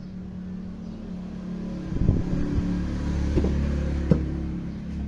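A motor vehicle's engine running close by, growing louder toward the middle and easing off, with a few sharp knocks.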